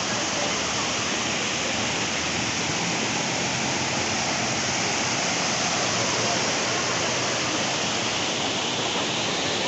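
Waterfall roaring steadily: an unbroken, even rush of falling water.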